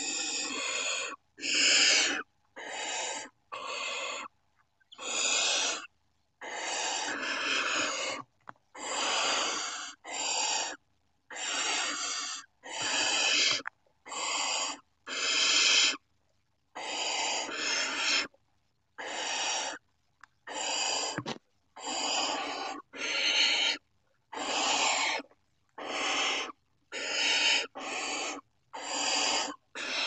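Barn owl chicks giving their hissing, snore-like begging calls, one rasping call after another about once a second, each lasting under a second, sometimes two in quick succession.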